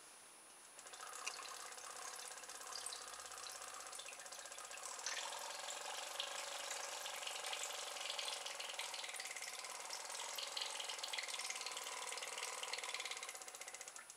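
Small solar-powered motor from a fluttering-butterfly garden ornament running with a fine, fast rattling hum as it spins a homemade propeller. It starts about a second in, gets louder around five seconds in, and cuts off suddenly near the end when a hand shades the solar panel.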